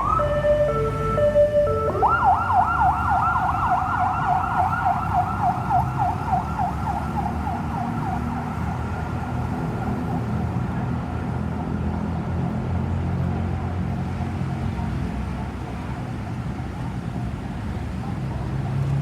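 Ambulance electronic siren: a quick rising whoop, a second or two of steady alternating tones, then a fast yelp sweeping up and down several times a second that fades away within about six seconds. A steady low rumble of road traffic continues after it.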